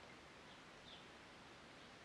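Near silence: room tone, with two very faint high chirps about halfway through.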